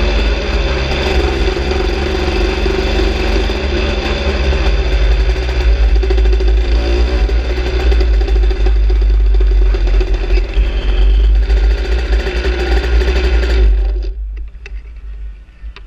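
Aprilia RS 125's single-cylinder two-stroke engine running as the bike rolls slowly, then cutting out about 14 seconds in, after which only a few faint clicks remain.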